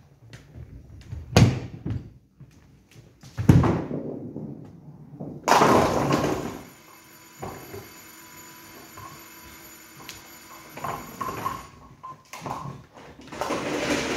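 Nine-pin bowling: a ball thuds onto the lane and rolls, then crashes into the pins about five and a half seconds in. The automatic pinsetter then runs with a steady hum and clatters near the end as it sets up a fresh set of nine pins.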